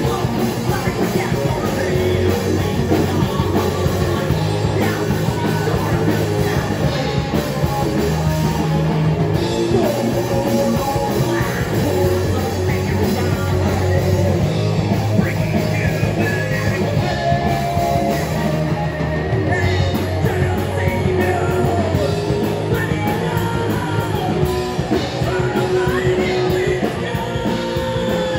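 Live heavy metal band playing: distorted electric guitars, bass and drum kit, loud and dense, with a singer's voice over it at times.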